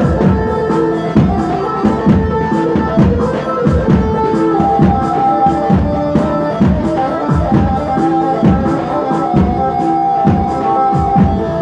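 Live halay dance music from an electronic arranger keyboard: a steady drum beat under a melody of long held notes.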